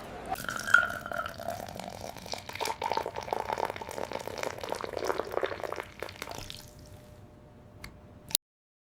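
Juice pouring and dripping, with many small wet crackling clicks; it fades about six and a half seconds in and cuts off suddenly near the end.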